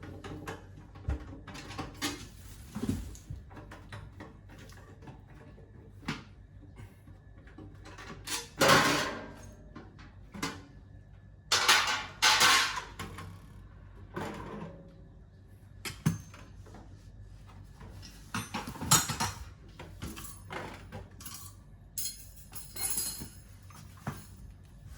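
Irregular metallic clinks, knocks and scraping as a meat slicer's parts are handled and adjusted. The loudest scrapes come about nine seconds in and around twelve to thirteen seconds in.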